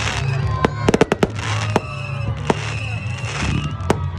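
Fireworks going off: sharp bangs and cracks, with a quick run of several about a second in, over crackling and whistling tones that slowly slide down in pitch.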